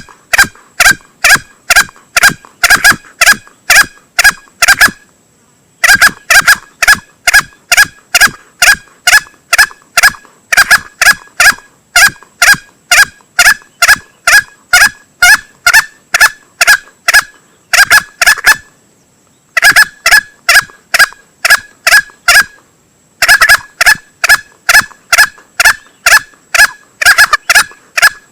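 Male green junglefowl lure recording: short, clipped calls repeated rapidly, about three a second, in long runs broken by brief pauses.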